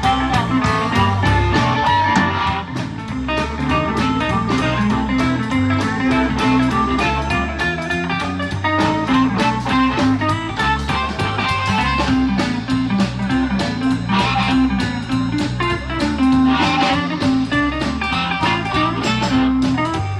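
Blues band playing an instrumental break, the guitar most prominent over bass and drums.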